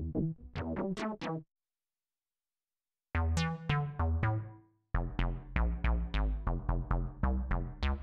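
Martinic AX73 software synthesizer, an emulation of the 1986 Akai AX73 analog polysynth, playing factory bass presets. The 'Perc Humm Bs' bass line cuts off about a second and a half in. After a stretch of silence, the 'Punchy Square Bs' preset plays a short phrase of decaying notes and then a fast run of short bass notes, about five a second.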